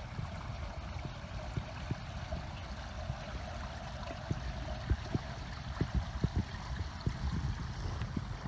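Outdoor noise on a handheld phone microphone: a steady rushing hiss over a low rumble, with many short soft thumps from handling and wind on the microphone.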